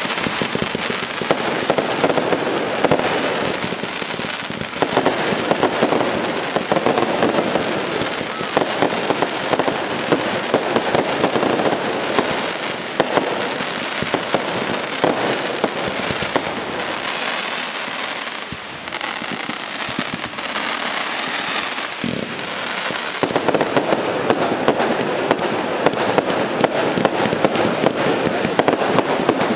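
Fireworks display: a dense, unbroken stream of crackling, popping and sharp bangs from ground fountains, crackling comets and aerial shells, easing slightly for a few seconds about two-thirds of the way through before building again.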